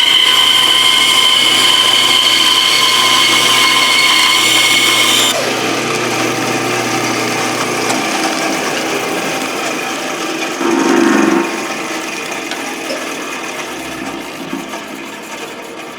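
Bandsaw running and cutting through a wooden dragster blank, with a steady high whine over a low motor hum. The cutting noise stops about five seconds in and the hum ends around eight seconds. The saw then runs on more quietly, fading, with a brief louder rattle near eleven seconds.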